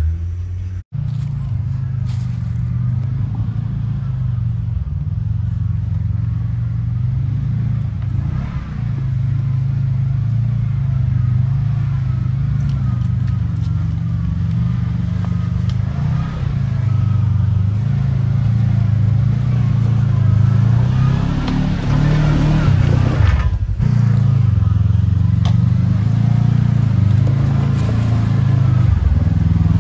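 Kawasaki KRX side-by-side's engine working at low speed over rock, its revs rising and falling with throttle blips as the machine crawls and climbs. It pushes harder for a few seconds about two-thirds of the way through.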